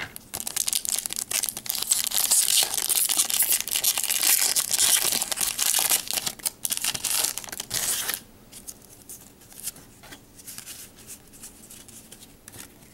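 Pokémon trading-card blister pack and booster wrapper being torn open by hand: tearing and crinkling of plastic packaging, dense and busy for about eight seconds, then quieter scattered rustling.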